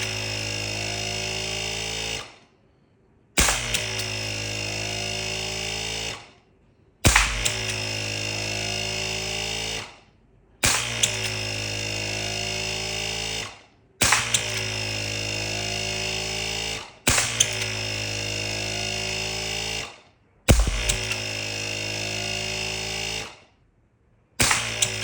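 A solenoid-valve airgun firing 6 mm steel BBs one shot at a time, with seven sharp shots about every three and a half seconds. Each shot is followed by a steady buzzing hum that lasts about two and a half seconds and then stops.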